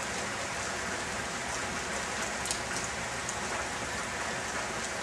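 Steady rain falling: an even hiss with a few distinct drops standing out.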